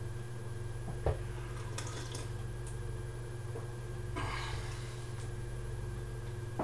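A man sipping tea from a mug over a steady low room hum, with a light knock about a second in and a soft breathy rush a little after four seconds.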